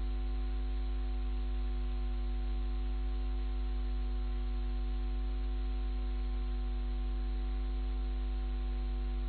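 Steady electrical hum: a constant low buzz with several fixed overtones above it, unchanging in level throughout.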